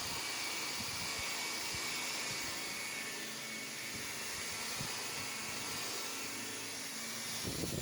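Steady hiss, even throughout, with a few faint ticks.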